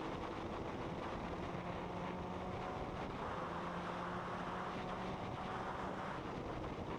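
Wind rushing over the microphone of a sportbike at road speed, with the Triumph Daytona 675's inline three-cylinder engine running faintly underneath at a fairly steady cruise.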